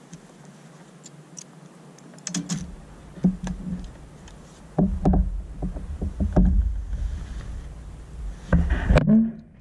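Knocks and clatter on a plastic fishing kayak as the angler handles a freshly landed bigfin reef squid and the rod, over a low rumble that starts a couple of seconds in. The loudest knocks come about five seconds in and near the end.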